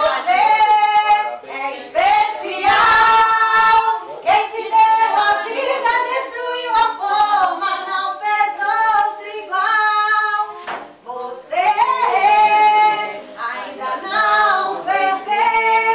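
A group of adults and children singing together in unison, with some hand clapping.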